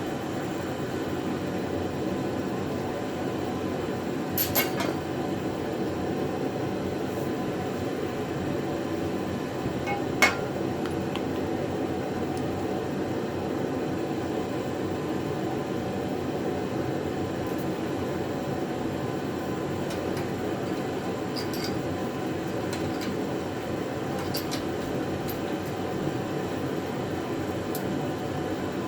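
Steady whirring background noise, like a fan or air conditioner running, with two sharp knocks about four and a half and ten seconds in and a few faint ticks later.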